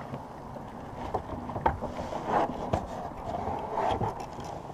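Handling noises of a person shifting about in a kayak: a few sharp knocks and taps, with short stretches of rustling in between.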